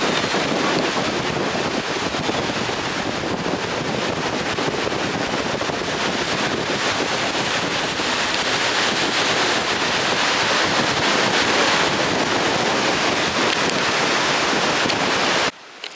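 Ocean surf breaking steadily, with wind buffeting the microphone; it cuts off suddenly near the end.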